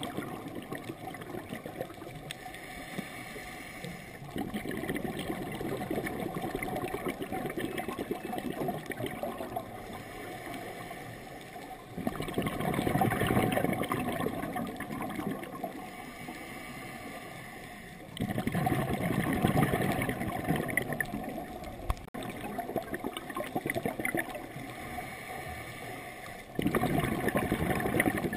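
Scuba regulator exhaust bubbles heard underwater: the diver exhales in gurgling bursts that start suddenly, three times about six to eight seconds apart, with a quieter noisy stretch between breaths.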